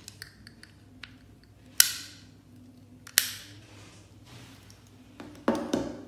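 Plastic motorcycle handlebar switch block being handled, with two sharp clicks of its rocker buttons about a second and a half apart and small ticks between them. Near the end there is a short clatter of plastic parts and wires being set down.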